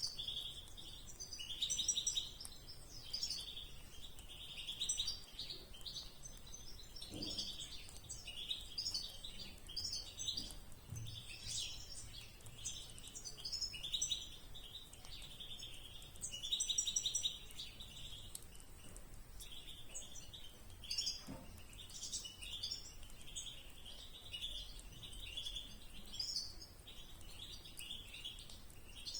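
Small caged finches chirping almost without pause, in quick clusters of short high calls.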